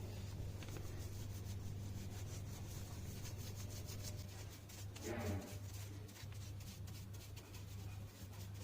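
Quick repeated rubbing or scrubbing strokes over a steady low hum, with a brief louder stroke about five seconds in.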